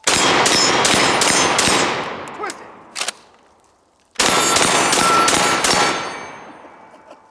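IWI Tavor TS12 12-gauge semi-automatic bullpup shotgun firing double-aught buckshot in two rapid strings of about five shots each, each string trailing off in echo. Between the strings come a couple of sharp clicks as the next magazine tube is rotated into place.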